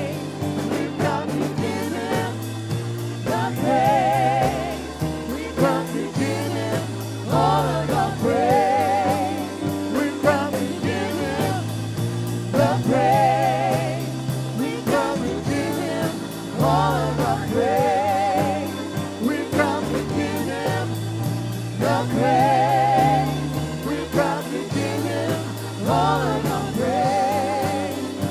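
Gospel worship song: a lead singer's voice with vibrato over a live band with a steady bass line.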